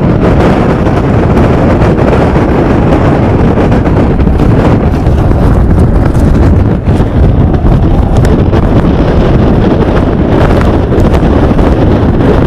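Strong wind gusting across the microphone in a loud, steady rush, mixed with the roar of a large, violent tornado close by.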